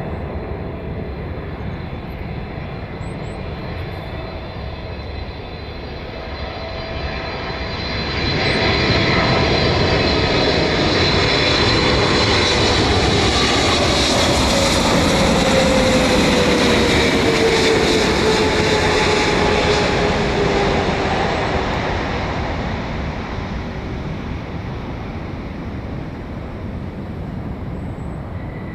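Boeing 777-300ER twin-jet on final approach, the noise of its GE90 engines swelling about eight seconds in as it passes close by, with a whine that glides down in pitch, then fading as it flies on toward the runway.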